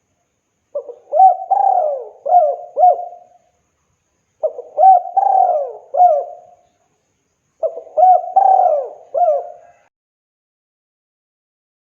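Spotted dove (tekukur) cooing: three phrases of several gliding coo notes each, one about every three and a half seconds, with short silences between.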